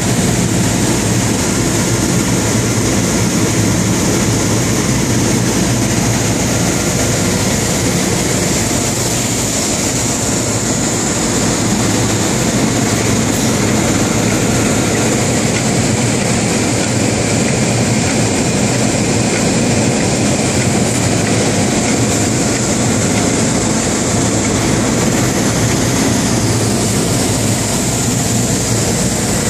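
Steady loud hum and hiss of industrial woodworking machinery running at a Schelling panel saw, with no distinct strokes or changes in pitch.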